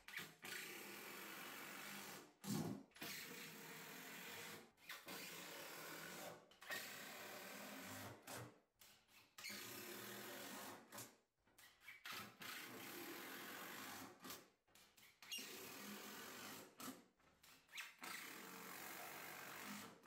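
Cordless power driver sinking screws into an OSB bench top: a run of short motor bursts, each a second or two long, with brief pauses between as it moves from screw to screw.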